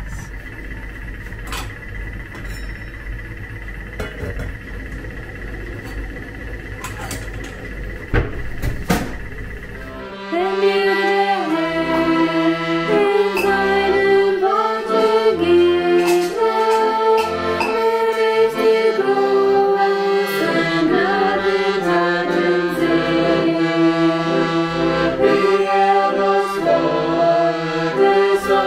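A steady low hum with a few knocks, then about a third of the way in a piano accordion starts playing a tune, a melody over low bass notes, and carries on to the end.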